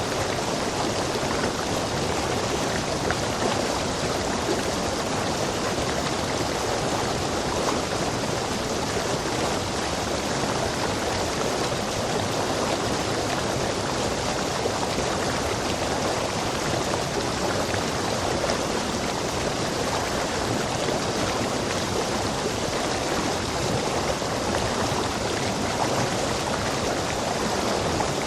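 A rainforest stream rushing over rocks: a steady, even rush of water with no breaks.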